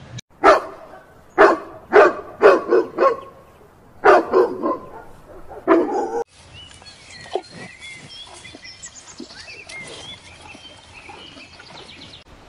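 Border collie barking in quick groups of short, loud barks, about ten in all, stopping abruptly about six seconds in. Faint bird chirps follow.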